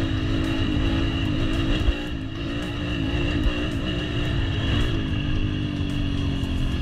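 Dirt bike engine running at a fairly steady speed, the revs wavering slightly, then settling a little lower after about five seconds.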